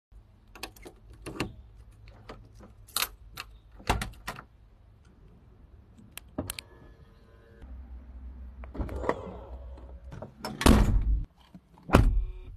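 Car door hardware being worked: the chrome push-button door handle and latch of a 1965 car clicking and clunking several times, then a key fob's button clicks, a short tone, and two heavy thumps near the end from a 2021 car's door.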